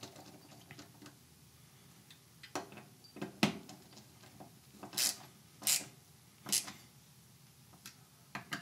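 Small metallic clicks and scrapes of a hand screwdriver threading in the mounting screws of a Trijicon RMR Type 2 optic on a Glock 19 Gen 5 MOS slide. They come scattered, with the three loudest clicks about two thirds of a second apart in the second half.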